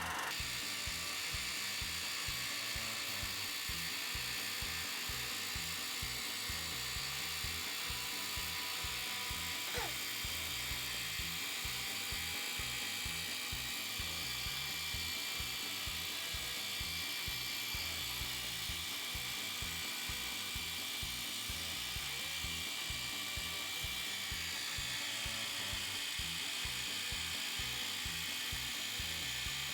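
High-pressure washer spraying water onto an air conditioner's aluminium fins: a steady hiss of spray over the fast, even pulsing of the washer's pump motor.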